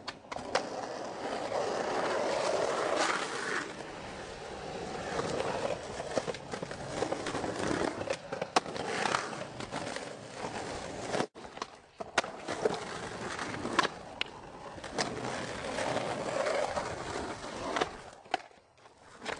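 Skateboard wheels rolling, with several sharp clacks from the board hitting the ground.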